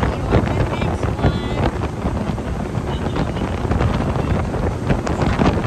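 Wind buffeting the microphone on a motorboat running at speed, over the steady drone of the outboard motor and the rush of water along the hull.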